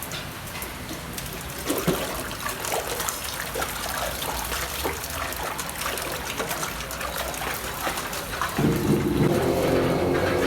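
Water splashing and trickling, with scattered small clicks, then a heavier, louder pour starting suddenly about eight and a half seconds in.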